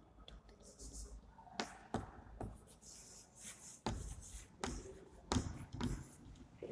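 Writing on a board: irregular taps of the writing tip striking the board and short scratching strokes between them, faint.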